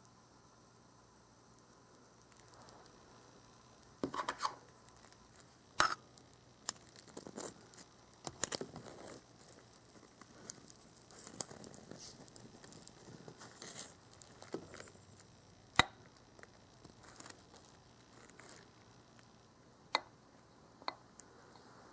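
A small spatula scrapes and taps against a miniature frying pan as a tiny pancake is lifted and flipped: irregular scraping and crackling with a few sharp clicks. It is quiet for the first few seconds, and the handling tails off into occasional clicks near the end.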